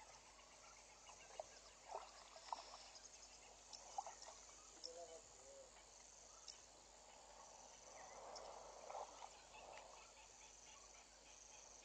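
Faint, high-pitched insect chirping coming and going in the bush, with a few soft clicks and a brief low warble about five seconds in.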